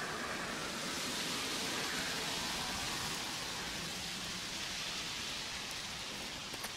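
Steady rushing outdoor background noise, a little louder about two seconds in and easing off toward the end.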